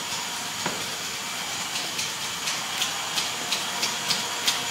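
Steady hiss with a run of sharp, evenly spaced clicks, about three a second, starting about a third of the way in and growing louder toward the end: the mechanism of a large K'NEX Ferris wheel model clicking as it runs.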